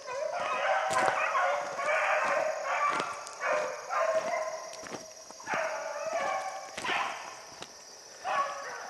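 A pack of beagles baying and bawling in repeated, overlapping calls at several pitches: hounds giving voice while running a rabbit's track.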